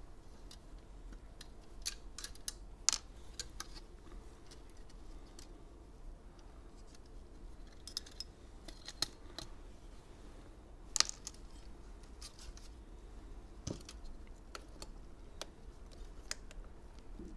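Gloved hands handling a modem's plastic internal antenna frame with metal shielding: scattered light clicks and taps of plastic parts, with sharper knocks about three seconds in and again about eleven seconds in.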